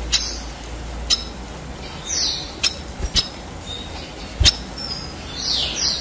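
Caged red siskin giving two short falling call notes, one about two seconds in and a longer one near the end. Several sharp clicks from the cage come between them as the bird moves on the perch.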